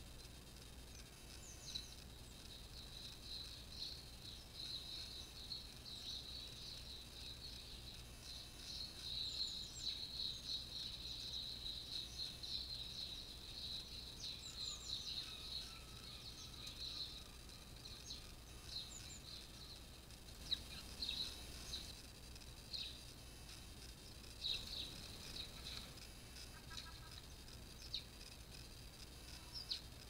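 Small garden songbird singing a high, fast warbling song for about fifteen seconds, followed by scattered short high chirps.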